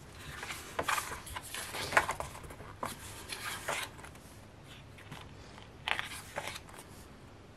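Paper pages of a softcover album booklet being opened and turned by hand, rustling and sliding in several short bursts.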